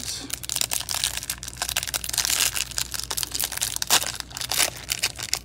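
2021 Panini Prizm football hanger box being pried open by hand: a run of quick cardboard crinkling, crackling and tearing as the flaps are worked loose.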